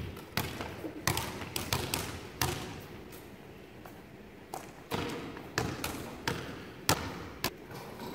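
Basketballs bouncing on a hardwood gym floor, several balls dribbled at an uneven rhythm. Each bounce is a sharp thud that echoes in the large hall, and the bounces thin out for a second or two in the middle.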